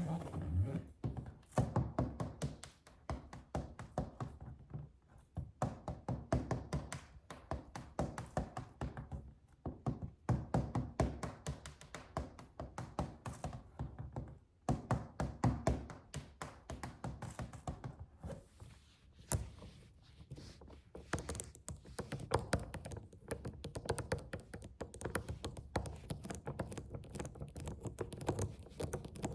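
Quick tapping and knocking on a suitcase, several taps a second, growing sharper and busier for the last eight seconds or so.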